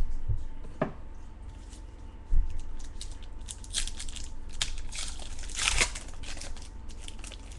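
Trading cards and their foil pack wrappers being handled: irregular crinkling, rustling and small clicks, busiest in the second half, with a single low thump about two and a half seconds in.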